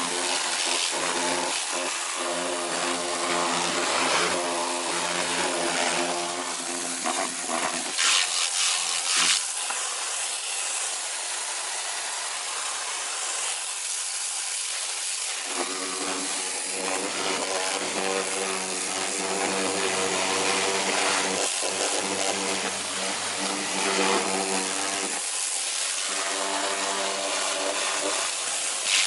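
Kärcher K2.900 Silent pressure washer running: the motor and pump hum steadily under the hiss of the water jet striking a utility sink. The pump hum drops out briefly three times, about eight seconds in, around fourteen seconds, and near the end, as the spray stops.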